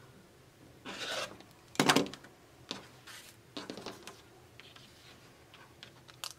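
Rotary cutter trimming the edges of cotton quilt squares against a ruler on a cutting mat: short cutting strokes about one and two seconds in, the second the loudest and sharpest. After that, quieter rubbing and light taps as the fabric squares are moved about.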